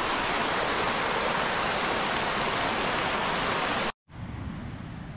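Mountain river rushing over rocks, a loud steady wash of water noise. It cuts off suddenly about four seconds in and gives way to a much quieter steady hiss.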